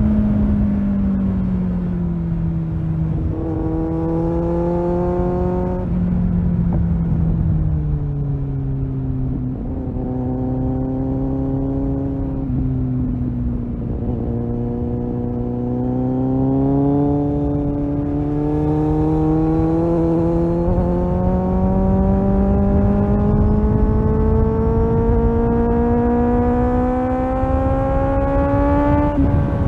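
Kawasaki Z800 inline-four motorcycle engine with a Tiger aftermarket exhaust, under way: the engine note drops, rises briefly, holds low for a few seconds, then climbs slowly through most of the second half as the bike accelerates, and falls away near the end. Steady wind and road noise run underneath.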